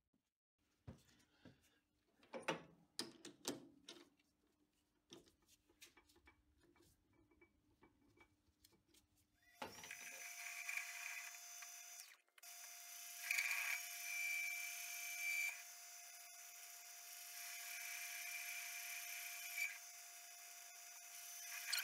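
A handful of clicks and knocks, then about ten seconds in a small hobby metal lathe starts and runs with a steady whine. Twice a higher squeal rises over it as the tool faces off the end of a stainless steel peg.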